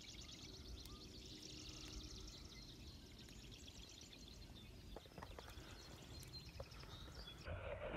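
Faint outdoor ambience: a rapid, high-pitched trill fades out about two seconds in. In the second half come scattered soft clicks and rustles of footsteps through tall grass.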